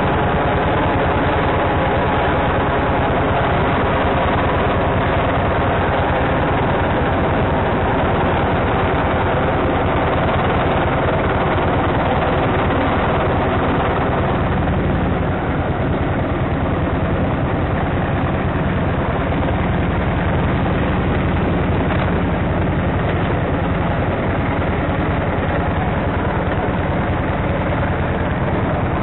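Motorcycle engine running while riding, heard close up from a camera mounted on the bike, with a fast rattling pulse. The engine note changes about halfway through.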